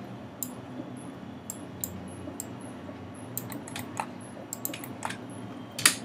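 Irregular clicks and taps of a computer mouse and keyboard, with the loudest click near the end, over a faint steady low hum.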